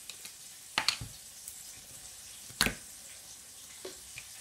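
Two sharp knocks, a little under two seconds apart, as a plastic mustard squeeze bottle is handled and set against the countertop, over a steady faint sizzle of fish frying in oil.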